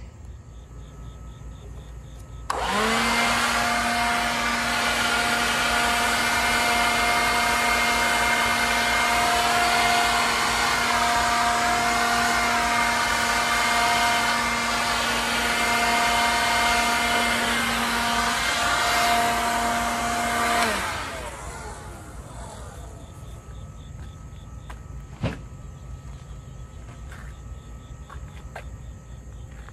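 Cordless power sander switched on about two and a half seconds in, its motor running steadily with a slight wavering in pitch as it is floated lightly over the foam of a 3D archery target. It is switched off about two-thirds of the way through and spins down, and a single sharp click follows a few seconds later.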